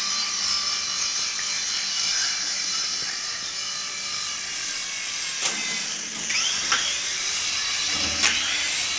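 Small toy RC helicopter's electric motors and rotor blades whining steadily in flight. The pitch dips and rises with clicks about six seconds in, and there is a sharp knock near the end as it comes down on the ground.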